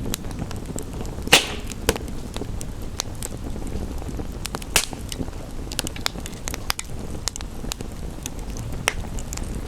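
Wood fire crackling, with many small snaps and a few sharp pops, the loudest a little over a second in and another near five seconds in, over a steady hiss of rain.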